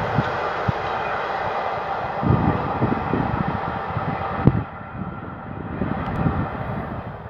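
Container freight train rolling away along the track, its wheel and rail noise fading steadily, with a clear drop about four and a half seconds in. Irregular low gusts of wind buffet the microphone underneath.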